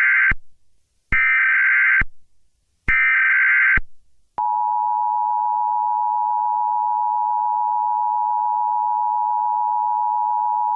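Emergency Alert System broadcast alert: three short bursts of shrill digital header data about a second apart, the first already under way, then from about four seconds in the steady two-tone EAS attention signal. This is the signal that an emergency message is about to be read.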